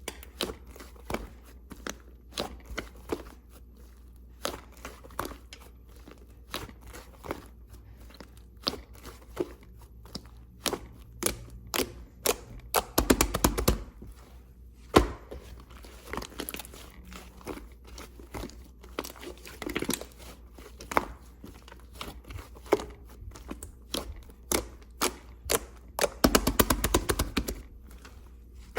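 Slime being squeezed, poked and stretched by hand, giving a quick irregular run of sharp clicks and crackles, with denser crunchy crackling bursts about halfway and near the end.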